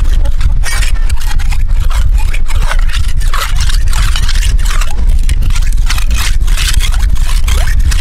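Machete blade being scraped back and forth on a concrete surface to sharpen it: repeated gritty rasping strokes over a steady low rumble.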